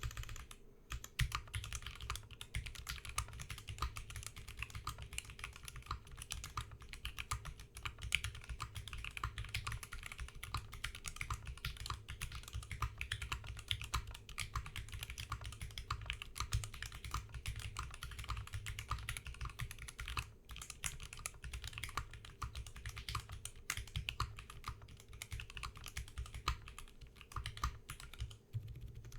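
Fast, continuous typing on a D60 mechanical keyboard with stock NovelKeys Silk Yellow linear switches: a dense, unbroken stream of keystroke clacks with only brief pauses.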